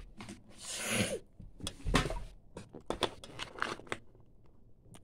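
Handling noise of a plastic 2x2 puzzle cube being picked up: a brief rustle, then a series of short sharp plastic clicks.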